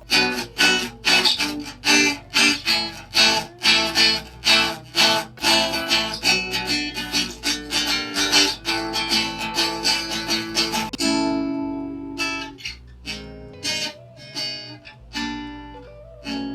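Jumbo acoustic guitar strummed in a steady rhythm of about three strums a second. About eleven seconds in, one chord is left ringing, and slower, sparser strums follow.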